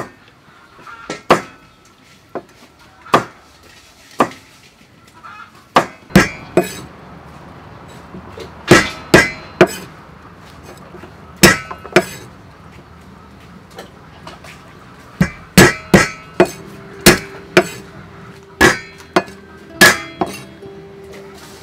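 Cleaver chopping green fruit on a thick round wooden chopping block: sharp knocks at irregular spacing, often in quick runs of two or three with pauses between.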